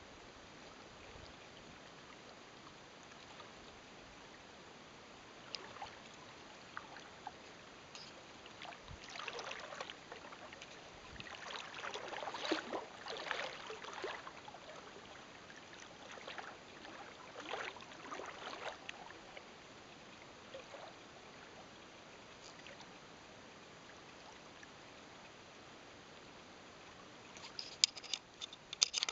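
Faint, irregular sloshing and splashing of shallow water over a quiet hiss, strongest through the middle of the stretch. A few sharp clicks near the end.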